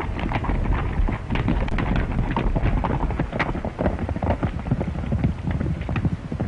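Hoofbeats of several horses ridden at a fast pace: a quick, continuous clatter of hooves.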